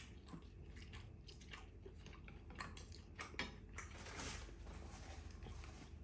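Close-miked eating of bún trộn bò (beef vermicelli salad): steady chewing and biting with many small crunchy, wet clicks, and a short hissy rustle about four seconds in.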